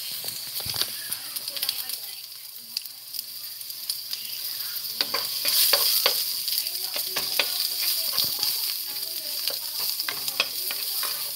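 Chopped onion sizzling in hot oil in a pot while a wooden spoon stirs and scrapes against the pan; the stirring clicks grow busier and louder about halfway through.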